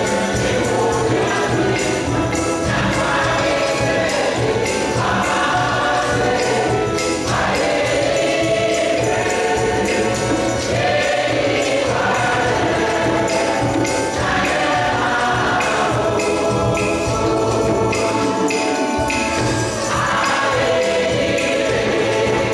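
Choir singing a gospel song over a steady percussive beat.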